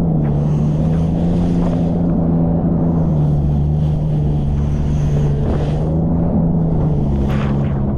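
Jet ski engine running steadily under way, its pitch dipping a little and rising again near the end, with a hiss that comes and goes over it.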